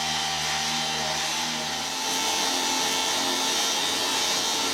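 Electric random orbit sander running steadily, sanding cured epoxy fills flush on a reclaimed-wood countertop; its low hum drops out about two seconds in while the high whine carries on.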